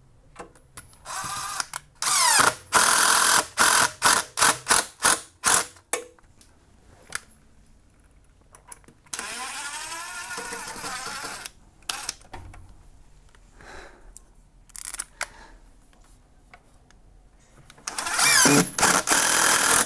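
Cordless impact driver running in several short bursts as it drives fixing screws, its motor whine rising and falling as it spins up and slows. The bursts come in three groups, with quiet gaps between.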